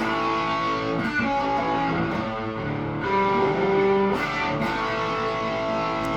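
Electric guitar played through a Marshall Origin 20C tube combo amp, overdriven by an Ibanez Tube Screamer pedal. Picked notes and chords ring on, changing every second or so.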